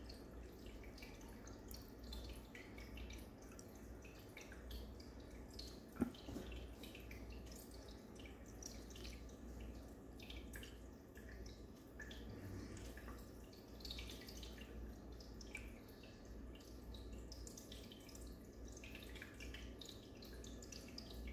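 Faint water trickling and dripping in a home aquarium, typical of a filter's outflow, over a low steady hum, with one sharp click about six seconds in.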